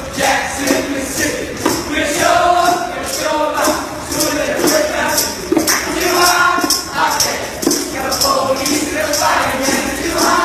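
Voices singing over a steady percussion beat of about two to three sharp strikes a second.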